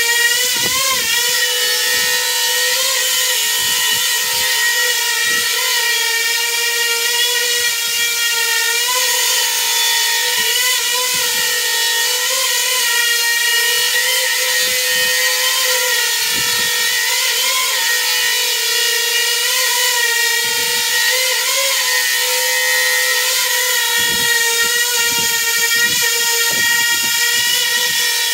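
Small coaxial drone's motors and contra-rotating propellers hovering with a steady high whine. The pitch dips and recovers briefly every second or two, the twitches of an Ardupilot AutoTune run.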